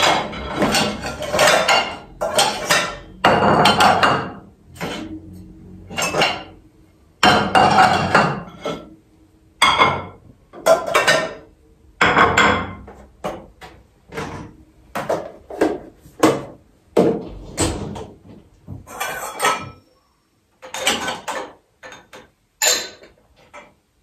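Dishes, pots and cutlery clattering and clinking against each other and the wire racks of an open dishwasher as they are handled, in a loud, irregular run of knocks that thins out with short pauses near the end.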